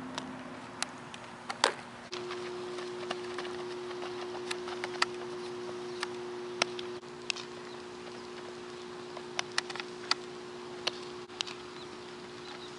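Infield practice audio: scattered sharp clicks and pops of a baseball coming off a bat and smacking into leather gloves, with the loudest about two seconds in. A steady low hum runs underneath and changes level abruptly twice at cuts.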